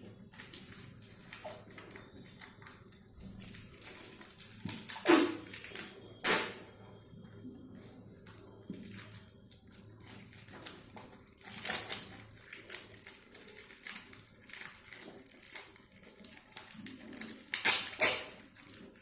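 Stiff card paper and cardboard being handled and pressed together: irregular rustling and light knocks, with a few louder crinkles about five, six, twelve and eighteen seconds in.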